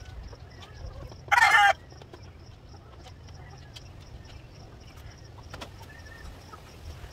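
A chicken gives one short, loud, harsh call about a second and a half in, over a low background rumble and a few faint clicks.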